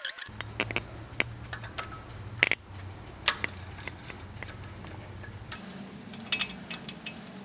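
Light metallic clicks and scrapes of snap-ring pliers and a screwdriver working a snap ring off a wheel hub, irregular and a few per second, with the sharpest click about two and a half seconds in.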